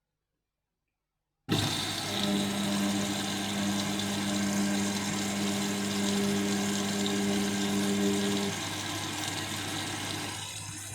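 Silent for the first second and a half, then a washing machine turning a heavy, waterlogged load: water swishing in the drum over a steady motor hum. The hum stops about two seconds before the end.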